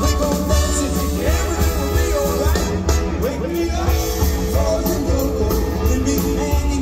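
Live swing and rock 'n' roll band playing, with a voice singing over a steady beat and a heavy bass line.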